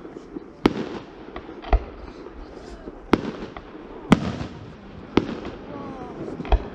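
Aerial firework shells bursting: six sharp bangs at uneven intervals, roughly a second apart, with smaller pops between them.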